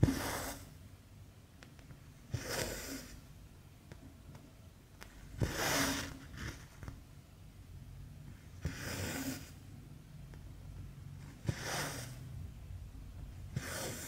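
Cotton embroidery thread drawn through stamped cross-stitch fabric, stitch after stitch: six short swishes about every three seconds, most starting with a sharp tick.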